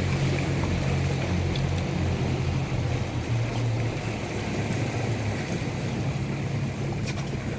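Small boat's engine running steadily under a haze of wind and water noise; the engine hum eases off about halfway through.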